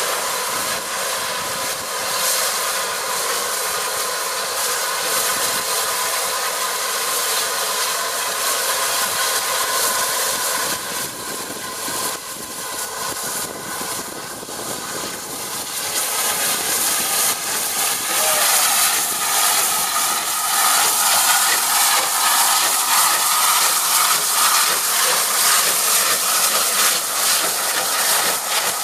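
Merchant Navy class steam locomotive 35028 Clan Line hissing steam steadily as it starts away slowly. The hiss grows louder from about halfway through as the engine draws close.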